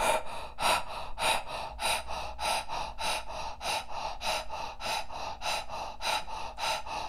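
A woman's rapid, rhythmic breathing through a rounded mouth, short forceful puffs at about four a second, as in a Kundalini breath-of-fire-style exercise.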